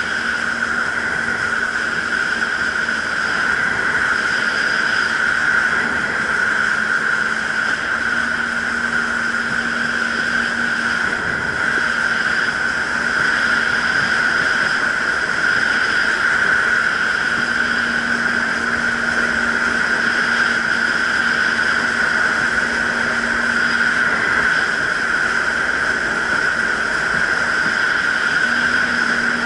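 Jet ski running steadily at cruising speed: an even engine whine with no revving, over rushing water and wind noise.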